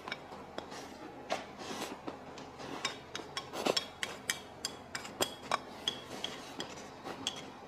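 Chopsticks clicking and scraping against a ceramic bowl as rice and food are shoveled into the mouth. The many quick, irregular taps come a few per second, and some leave a short ring.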